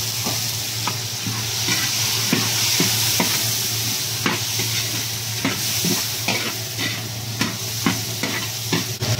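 Chopped vegetables (squash, string beans, okra with garlic and onion) sizzling in hot oil in a wok while a metal ladle stirs them, with irregular scrapes and clinks of the ladle against the pan, over a steady low hum.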